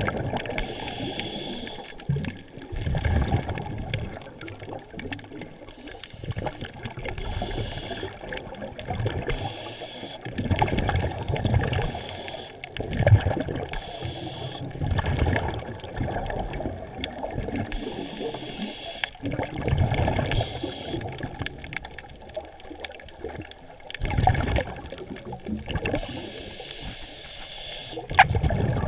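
Scuba divers' regulator breathing heard underwater: exhaled bubbles gurgling and rushing up in repeated bursts every few seconds.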